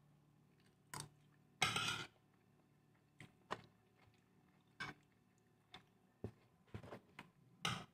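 Spoon and fork clinking and scraping against a plate while eating: scattered short, sharp clicks, with one louder noise lasting about half a second near the start.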